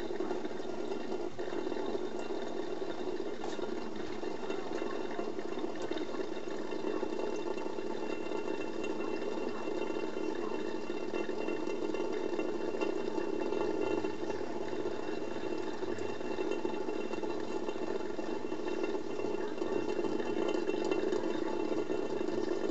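Thin stream of tap water running steadily from a kitchen faucet onto the drain basket of a stainless-steel sink.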